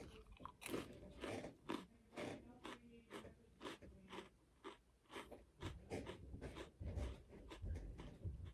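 A person chewing a Club cracker: quiet, irregular crunches, about two or three a second.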